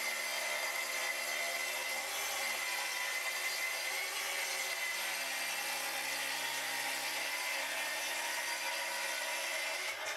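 Plunge-cut track saw running along its guide rail, cutting through a stack of OSB sheets in one long, steady pass.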